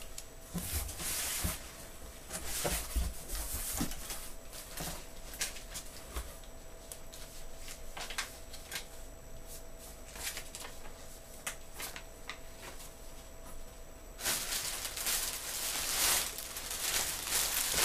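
A shipping package being opened by hand: scattered clicks and taps of cardboard and packing with brief rustles, then from about fourteen seconds in a steady crinkling and tearing of packing material.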